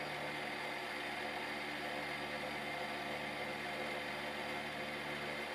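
Milling machine running steadily, its spinning end mill side-cutting an aluminium block while it is squared, with a constant motor hum and several steady tones.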